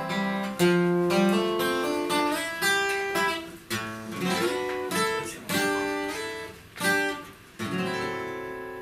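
Steel-string acoustic guitar played solo: picked notes and strummed chords, each struck sharply and decaying. Near the end a chord is left to ring and fade away.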